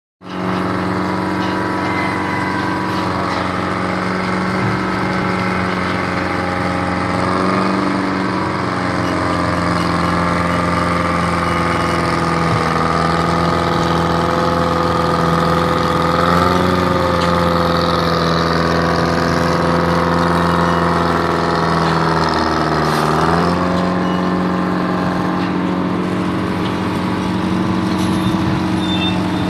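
Cargo crane's engine running steadily while it works a clamshell grab. Its pitch dips and recovers a few times, most sharply late on.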